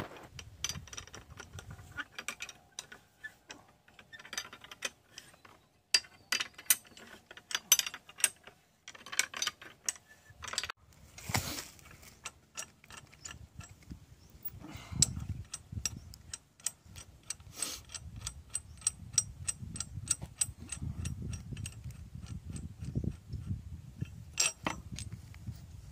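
Hand-operated chain block (chain hoist) clicking as its chain is worked to lower a borewell pump's column pipe: irregular metal clicks at first, then a fast, even run of clicks in the second half.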